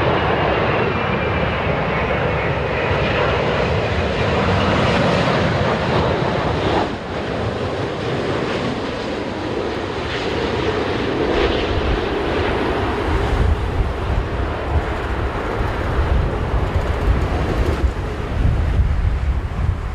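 Boeing 787 jet airliner on landing, its engine noise with a whine falling in pitch in the first seconds. In the second half a deep, gusty low rumble takes over.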